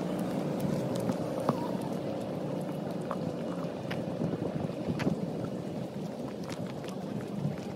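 Outdoor background noise while walking: a steady low rumble with a faint hum in it, partly wind on the phone's microphone, with a few light clicks scattered through.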